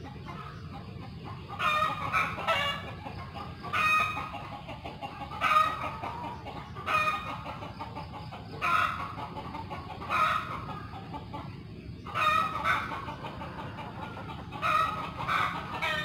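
A chicken clucking, with a short call every second or so starting about two seconds in, over a steady low background rumble.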